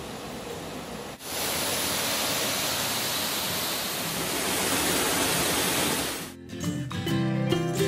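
Small waterfall cascading over rocks into a pool: a steady rush of falling water, stepping up in loudness about a second in. Music comes back in near the end.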